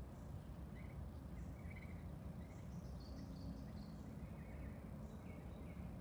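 Small wild birds giving short, faint chirps scattered through, over a low steady background rumble.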